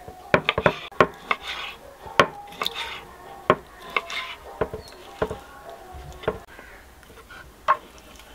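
Knife chopping raw beef heart on a wooden cutting board: sharp, irregular knocks of the blade on the board, a quick run of them in the first second and a half, then more spread out, with faint scraping between the cuts.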